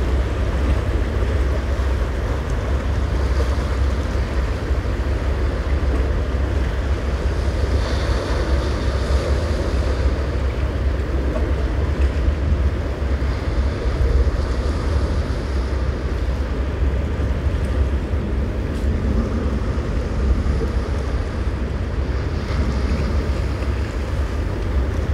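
Strong storm wind buffeting the microphone over rough surf washing against rocks: a steady rush with a heavy, deep rumble underneath.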